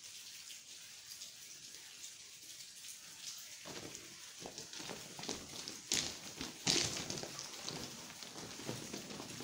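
Footsteps of people walking, a run of irregular scuffs and crunches that starts about four seconds in, with two louder steps a couple of seconds later; before that only a faint steady hiss.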